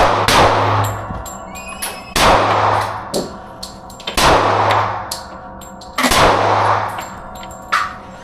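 Handgun shots fired one at a time, about two seconds apart, with a fifth, weaker report near the end. Each shot echoes off the hard walls of an indoor range.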